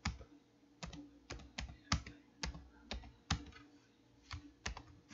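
Computer keyboard being typed on: about a dozen separate keystrokes at an uneven, unhurried pace.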